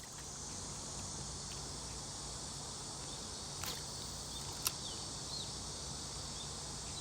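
Steady high-pitched chorus of insects, with two sharp clicks about four and five seconds in.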